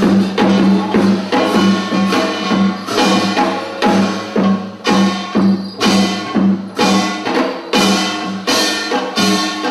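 Janggu hourglass drum struck rapidly with sticks in a fast, driving rhythm, over sustained held notes from the accompanying traditional ensemble.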